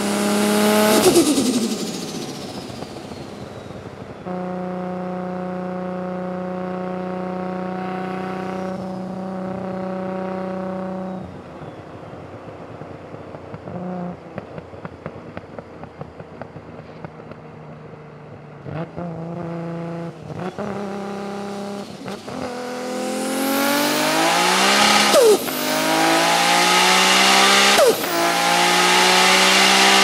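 Nissan Skyline R34 GT-R's built RB32/26 straight-six, single Garrett G42 turbo, about 1,100 hp. The revs fall away as it comes off a pull, then it cruises steadily before dropping to low revs with scattered light ticks. Near the end it accelerates hard, its pitch climbing, with two quick upshifts breaking the rise.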